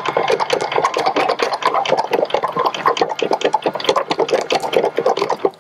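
Electric vertical anchor windlass running, hauling in anchor chain, with a rapid, continuous clatter of chain links over a motor hum. It cuts off abruptly at the end.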